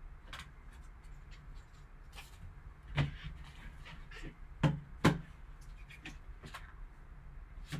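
Gloved hands handling a card box: soft rustling of card and foam, with sharp plastic clicks, one about three seconds in and two close together near five seconds, as a hard plastic graded-card slab is lifted out of its foam insert.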